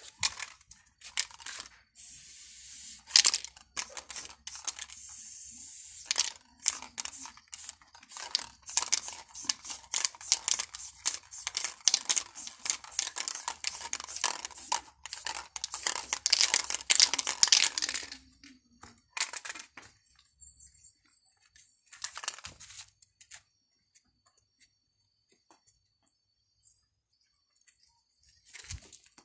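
Aerosol spray-paint can hissing in many short bursts of paint onto a wall, with one longer steady spray about two seconds in. The spraying stops about eighteen seconds in.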